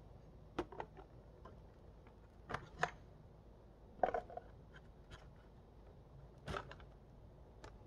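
A few scattered clicks and light knocks of hands handling the fuselage and canopy of an RC model airplane, its motors stopped with the throttle cut on. The loudest knock comes about six and a half seconds in.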